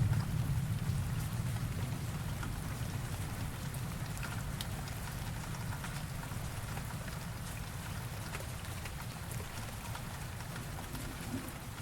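Steady rain falling, with individual drops heard as small ticks, over a low thunder rumble that slowly dies away after a clap.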